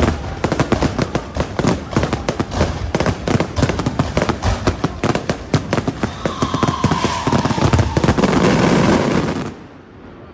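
Fireworks going off as a rapid, dense run of sharp cracks that thickens into a near-continuous crackle and cuts off suddenly about nine and a half seconds in.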